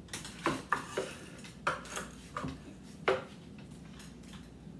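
Kitchen knife chopping cooked bacon on a wooden cutting board: about eight sharp, irregular knocks of the blade against the board over the first three seconds.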